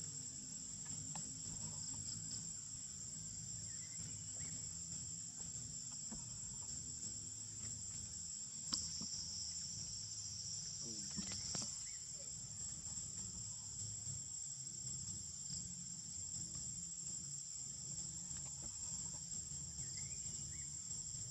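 Steady high-pitched insect chorus drones without a break, over a low steady rumble, with a single sharp click about nine seconds in.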